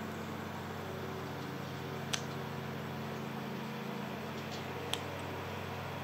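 Steady outdoor background hiss with a low, even hum underneath, broken by two brief sharp ticks about two and five seconds in.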